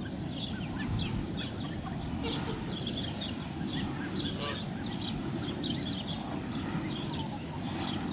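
Young goslings and ducklings peeping: many short, high chirps overlapping continuously over a steady low rumble.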